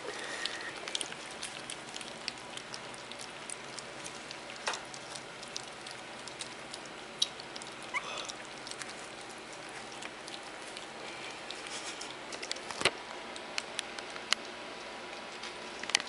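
Yorkshire Terrier puppies eating soft, mushy puppy food from a bowl: many small, irregular wet clicks and smacks from lapping and chewing. A brief rising squeak comes about eight seconds in.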